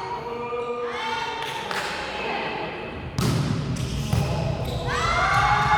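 Basketballs bouncing on a gym floor, with sneakers squeaking and a louder rush of low noise starting about three seconds in.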